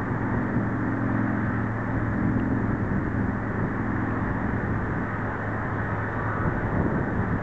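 Boeing 737's CFM56 turbofan engines running as the jet rolls out on the runway after a crosswind landing: a steady jet roar with low steady tones under it.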